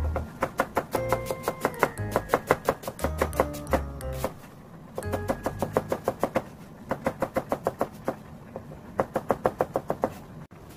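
Chef's knife chopping onion on a plastic cutting board: quick, rapid knife strikes in three runs with two short pauses.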